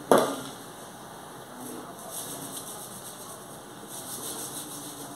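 A stainless-steel mixing bowl with a whisk in it is set down hard on a stone countertop just after the start, a sharp metallic clank that rings briefly. Then come two short stretches of faint scraping and rustling as the metal cake pan of batter is handled.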